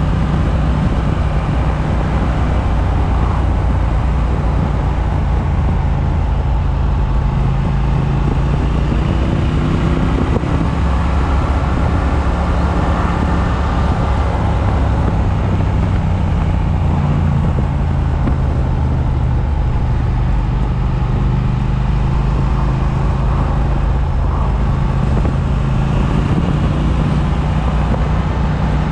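Triumph motorcycle engine running at road speed, heard from the rider's chest-mounted microphone with wind rushing over it throughout.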